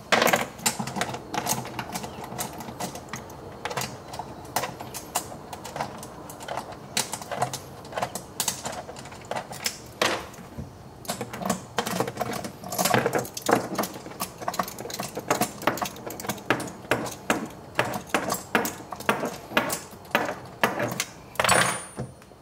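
Hand tools clicking and knocking against the plastic frunk trim of a Tesla Model Y as fasteners are taken out: many quick clicks in irregular runs, several a second, with short pauses between runs.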